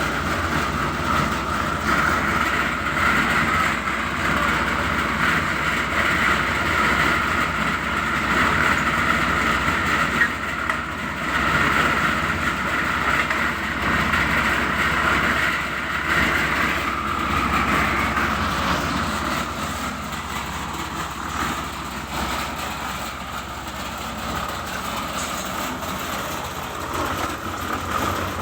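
Engine-driven concrete mixer running steadily, a continuous mechanical drone with rattle, as concrete is mixed for a floor pour.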